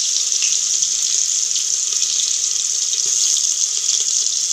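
Sliced onion sizzling in hot oil with mustard and cumin seeds in an aluminium pressure cooker: a steady loud hiss with faint scattered crackles, the onion just added to the tempering.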